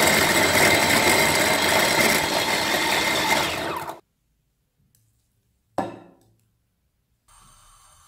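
Electric mini chopper running for about four seconds, its blades chopping strawberries and sugar into a purée, then stopping abruptly. A single sharp knock follows about two seconds later.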